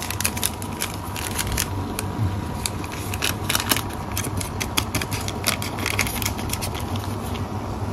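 Broth simmering in a wide paella pan, giving irregular crackles and pops over a low steady rumble.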